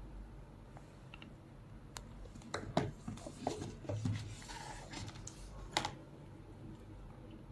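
Hands handling a bag and its packaging: a cluster of light clicks and taps with some rustling over a few seconds, ending in one sharper click.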